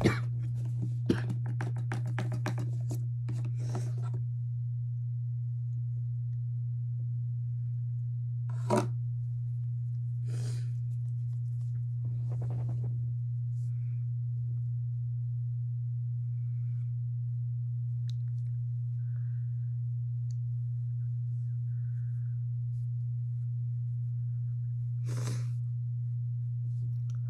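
A steady low hum, with close handling rustles and clicks in the first few seconds and a few short sniffs later on.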